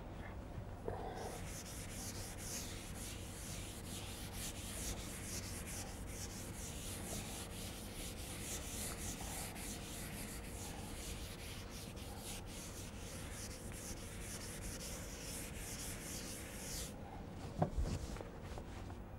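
A chalkboard duster wiping the blackboard in many quick, even strokes for about sixteen seconds, a steady high scraping hiss that stops suddenly. A single knock follows near the end.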